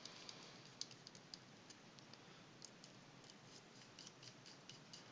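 Faint, irregular small clicks of a hand screwdriver turning small screws into a small plastic case.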